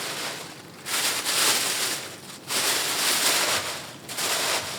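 Rustling and rubbing from handling the boots and their packaging, in four bursts of a second or so each.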